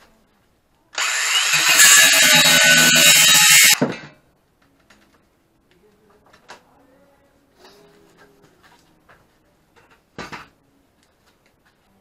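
Cordless drill running under load in one loud burst of about three seconds, then stopping. Light handling knocks follow, with one sharper knock near the end.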